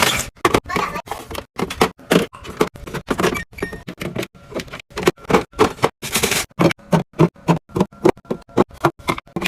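Background music with quick plucked notes, over a rapid run of short clicks and taps.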